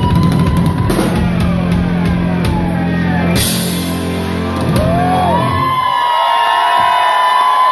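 Live hard-rock band playing the last bars of a song, with drums, electric guitars and bass and a cymbal crash about three and a half seconds in. The band drops out a little past halfway and a crowd starts cheering.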